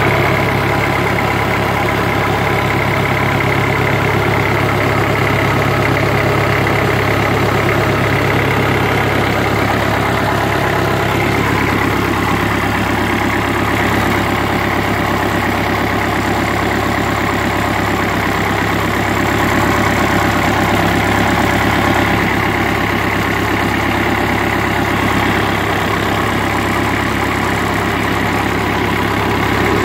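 Mitsubishi S4S four-cylinder diesel engine idling steadily after a full rebuild; its low note shifts slightly about twelve seconds in.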